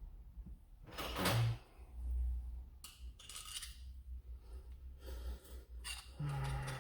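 Light clicks and rattles of plastic toy-blaster parts and screws being handled and worked loose by hand, with a short hiss about a second in.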